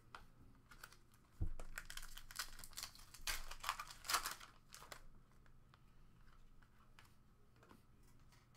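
A trading-card pack's wrapper being torn open and crinkled by hand, with a thump about a second and a half in; the crinkling is heaviest in the middle and dies away about five seconds in.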